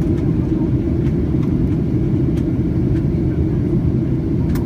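Airliner cabin noise in flight: the jet engines and airflow make a steady, deep rumble, with a faint click near the end.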